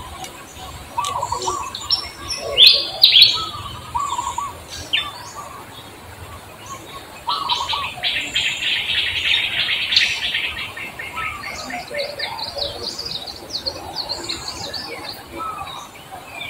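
Birds chirping and calling, with two loud chirps about three seconds in and a fast run of trilled notes from about seven to eleven seconds in.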